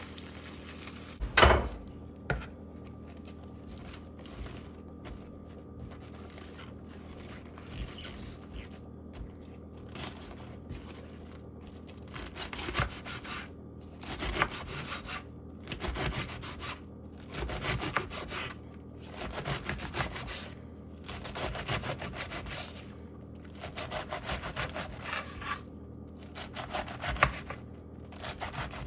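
A sharp knock about a second and a half in, then a run of rasping, rubbing strokes, one every one and a half to two seconds, growing steadier after about ten seconds.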